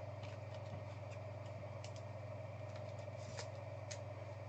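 Quiet room tone with a steady low electrical hum, broken by a few faint, sharp clicks.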